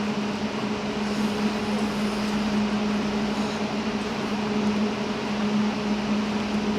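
Steady background noise of an indoor ice rink arena: an even hiss with a constant low electrical or mechanical hum underneath, unchanging throughout.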